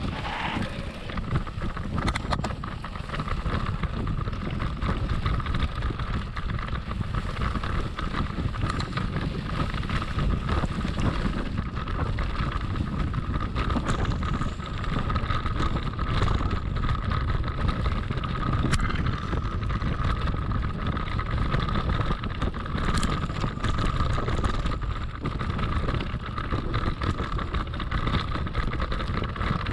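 Scott Spark 930 mountain bike rolling over a grassy field track and rough dirt trail. Its tyres rumble, with scattered sharp ticks from jolts, wind buffets the microphone, and a steady high-pitched hum runs underneath.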